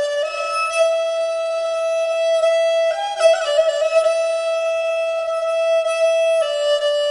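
Instrumental music: long held notes of a melody over a steady drone, the notes shifting every second or two.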